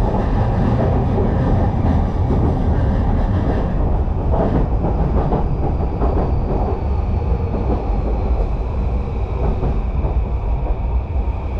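Yamanote Line electric commuter train running along the track, heard from inside the carriage: a steady rumble of wheels on rail. A faint, high, steady whine comes in about halfway through.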